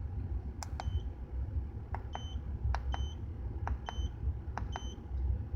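Five short electronic beeps about a second apart, each just after a sharp click, over the low rumble of the idling Acura Integra B18B1 engine.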